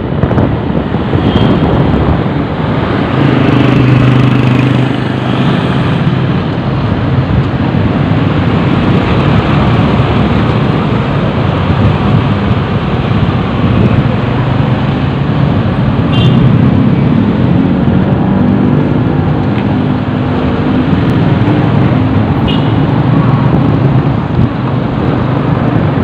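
Road traffic noise on the move: a steady rush of engines and tyres, with a low engine hum swelling twice as vehicles come close.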